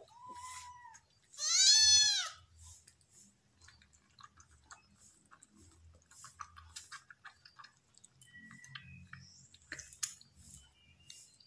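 Kitten meowing twice in the first couple of seconds, the second meow long and loud, rising then falling in pitch. Then soft clicking and smacking as kittens suckle milk from the teat of a small feeding bottle.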